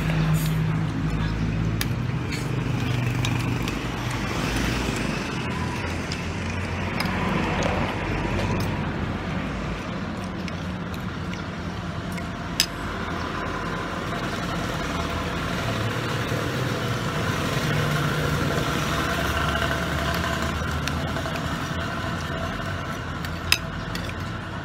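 Street traffic passing close by: cars and motorcycle-tricycle engines in a continuous hum that swells near the start and again later. Two sharp clinks of a spoon or fork on a plate come about halfway through and near the end.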